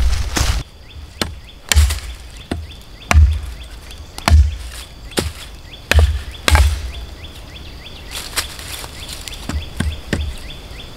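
A series of sharp knocks, each with a dull low thud, coming at an uneven pace of about one every one to two seconds, with faint bird chirps between them.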